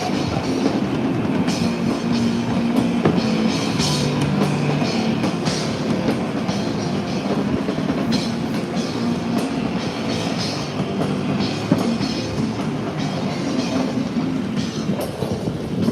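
Rock music with drums over the steady rumble and crackle of a fireworks barrage.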